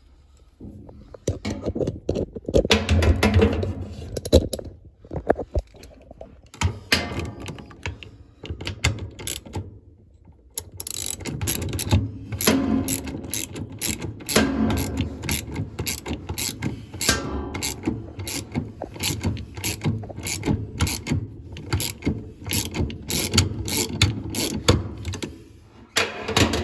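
Hand ratchet wrench clicking in quick runs, with short pauses, as the washing machine's agitator bolt is tightened down.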